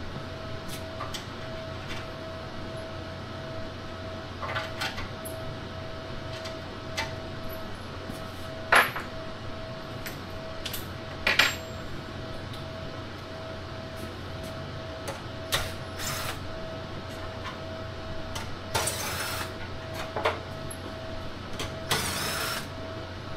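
Cordless drill-driver run in two short bursts near the end, backing out screws to take the top cover off a home battery cabinet. Before that come a few sharp clicks and knocks of handling, and a steady hum runs underneath.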